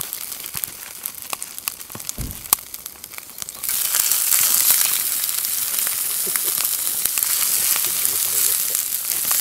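Paella ingredients frying in a pan over a wood fire. A hissing sizzle with scattered crackles turns much louder about four seconds in and keeps going steadily.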